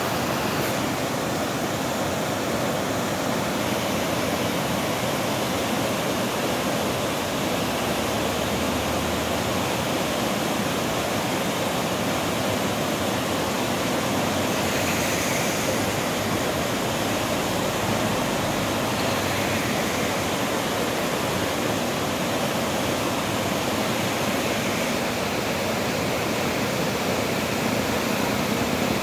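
Muddy floodwater rushing through a concrete-lined wadi channel in a steady, turbulent torrent after thunderstorm rain.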